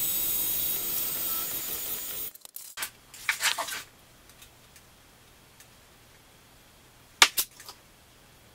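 A steady hissing machine noise that cuts off abruptly about two seconds in, followed by light clicks and clinks of small metal parts and a hand tool being handled, with a quick cluster soon after and a sharp pair of clicks near the end.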